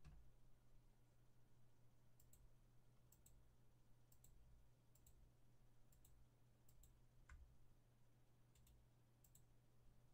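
Computer mouse button clicked about eight times, each a quick press-and-release pair of faint ticks, over a low steady hum.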